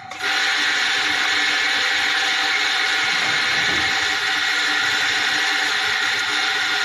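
Electric coffee grinder switched on and running steadily, grinding coffee beans for espresso.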